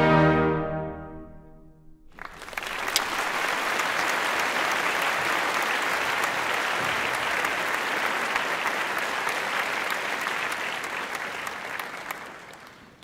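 An orchestra's final chord rings out and dies away, then an audience breaks into applause about two seconds in, the clapping fading out near the end.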